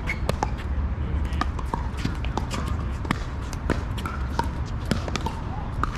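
Pickleball rally: paddles striking a hard plastic ball and the ball bouncing on the court, as a string of sharp, irregular pops about two a second, over a steady low rumble.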